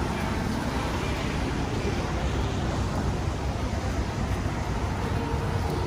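Steady traffic noise from a wide city road wet with light rain: a constant low rumble with an even hiss above it, and no single event standing out.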